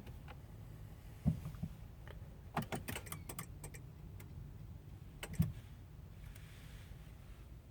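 A few irregular small clicks and taps, bunched together a little before halfway, over a low steady hum.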